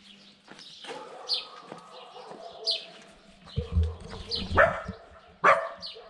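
A dog barking in a few short barks, the loudest two near the end.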